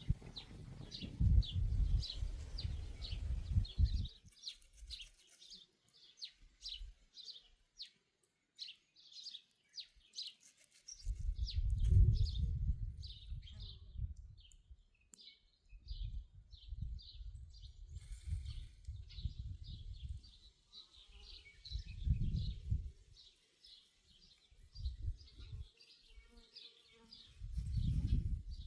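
Rhythmic high-pitched chirping, about three chirps a second, keeping on without a break. It is joined by low rumbling patches in the first four seconds, around twelve seconds in, and near the end.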